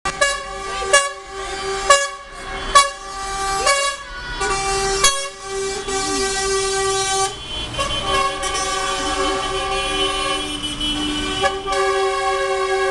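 Multi-note air horns on a fuel tanker lorry sounding a chord: a string of short toots about a second apart, then long held blasts.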